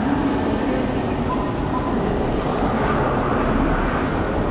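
Steady din of a crowded city street: traffic noise and many people in the road below, blended into a continuous roar with no single voice standing out.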